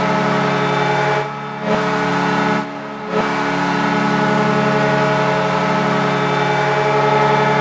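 Kahlenberg T3A hockey goal horn sounding a goal: a loud, steady multi-tone blast that breaks off briefly twice, about a second in and again near three seconds, then holds steady.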